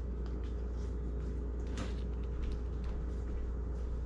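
Steady low hum in a small kitchen room, with a few faint clicks and knocks of kitchen handling.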